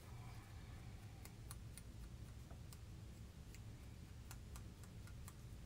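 Faint, irregular light clicks and taps of a small ink applicator dabbing colour onto paper flower petals, over a steady low hum.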